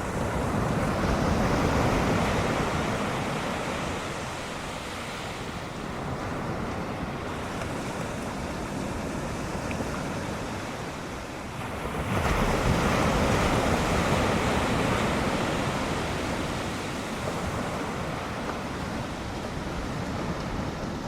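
Ocean waves breaking and washing in, with some wind noise. The surf swells up loudest about two seconds in and again about twelve seconds in.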